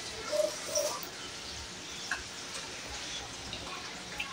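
Quiet eating of rice-noodle soup: soft mouth sounds as noodles are drawn in and chewed in the first second, then a couple of light utensil clicks against a porcelain bowl.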